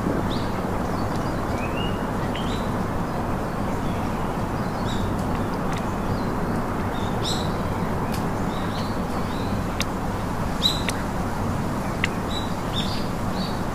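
Birds chirping in short, high, scattered calls over a steady rushing background noise, with a couple of brief sharp clicks near the end.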